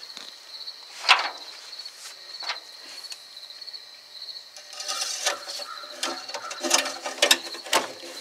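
Scattered metallic clicks and clunks from hand work on a truck's engine bay, most of them bunched in the second half. Under them, crickets chirp steadily in a fast pulsing trill.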